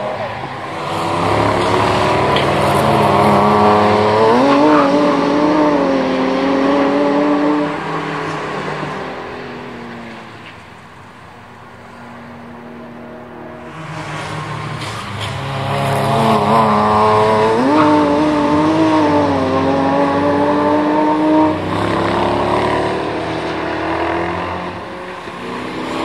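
Track-day cars accelerating hard past on a race circuit, engines revving up and shifting gears. There are two loud passes, with a lull about 11 seconds in.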